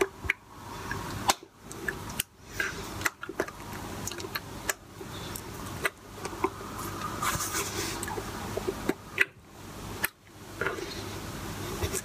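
Hands tapping, brushing and rubbing against each other and against a shirt during signing: an irregular string of short sharp taps and rustles over faint room tone.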